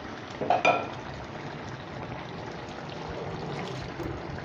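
Food bubbling and sizzling steadily in a cooking pan, with a brief clatter about half a second in.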